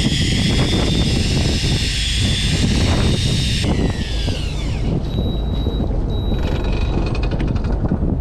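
Fishing boat running at sea, with steady engine and wind-and-water noise. A high whine slides down in pitch and dies away about four seconds in, followed by short, steady high tones.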